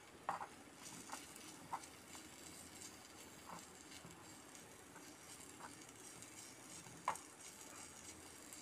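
A small spatula tapping and scraping in a tiny pan while prawns are stirred: a few faint scattered clicks over a low hiss, the sharpest about seven seconds in.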